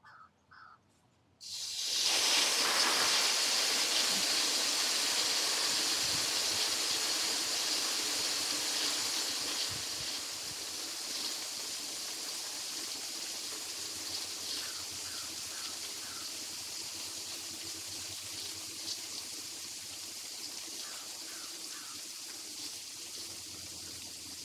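Pressurised water spraying out of an opened drain valve on a rainwater pump's plumbing as the system's pressure is bled off. The spray starts suddenly about a second and a half in and grows gradually quieter as the pressure drops.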